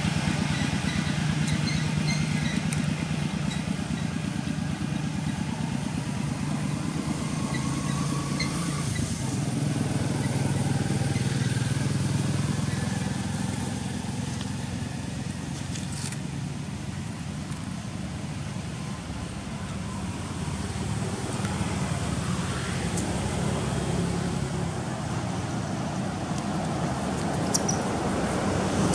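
A motor running steadily, its low hum rising and falling gently in level.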